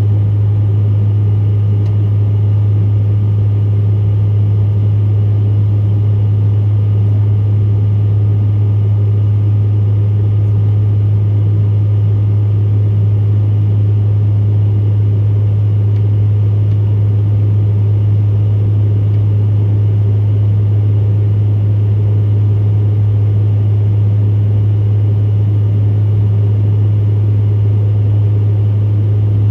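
Steady cabin drone of a Bombardier CRJ700 jet in flight: a strong, even low hum from its rear-mounted GE CF34 turbofans mixed with the rush of air past the fuselage, unchanging throughout.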